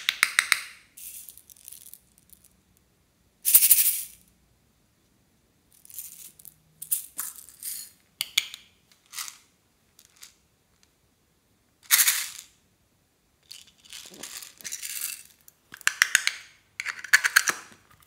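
Hollow plastic toys rattling and clicking in hand, in about nine short, sharp bursts with silence between them, each a quick run of small clicks.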